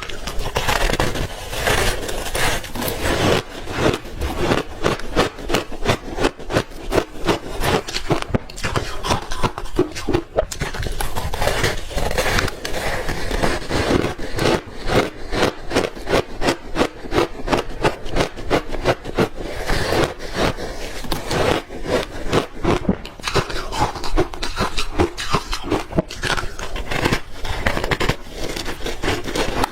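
Close-miked crunching of frozen ice chunks coated in matcha powder being bitten and chewed: a dense, irregular run of crisp crunches that goes on without a break.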